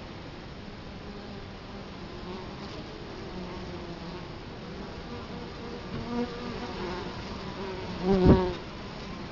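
Italian honey bees buzzing at the hive entrance: a steady hum of many wings. About eight seconds in, a single bee buzzes much louder for a moment, close to the microphone.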